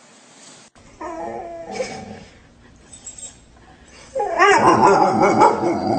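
Dog whining and crying: a short run of wavering cries about a second in, then a longer, louder run of wavering cries from about four seconds in.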